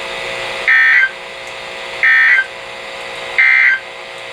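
Three short bursts of Emergency Alert System digital data tones, a warbling two-pitch screech, each about a third of a second long and spaced a little over a second apart. This is the SAME end-of-message code, sent three times to close the alert. A steady hum runs underneath.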